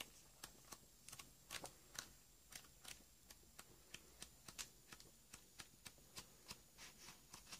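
Faint, irregular paper clicks and flicks, about three a second, as the sheets of a 15 x 15 cm scrapbooking paper pad are turned over one by one.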